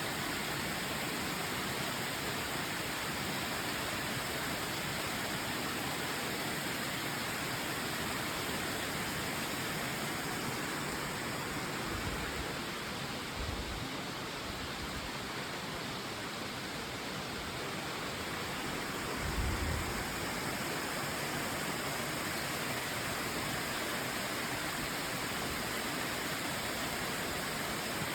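Waterfall rushing steadily, an even full roar of falling water, with a couple of brief low thumps about 12 and 19 seconds in.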